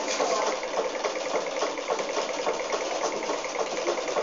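Electric sewing machine running steadily while stitching, its needle mechanism ticking in a fast, even rhythm.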